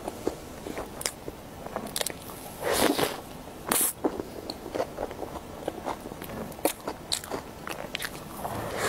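Close-miked chewing of a soft green sponge cake with cream and fruit: many short mouth clicks, with a fresh bite near the end.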